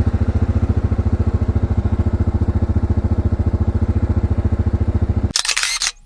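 ATV engine running steadily, a fast even low pulsing. About five seconds in it cuts off abruptly to a brief burst of hiss.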